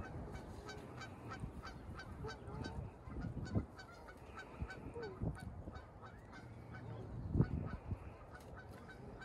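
Geese honking faintly at intervals over the pond, with a light, even ticking running underneath.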